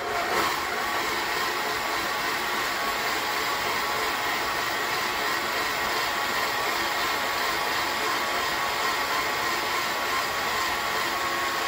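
Electric tilt-head stand mixer with a flat beater switched on and running steadily, its motor giving an even whine as it beats runny red velvet cake batter in a stainless steel bowl.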